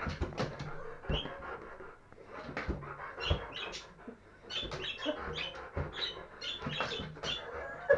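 A Rottweiler panting in quick breathy puffs, with a few dull taps of a rubber balloon being batted by hand.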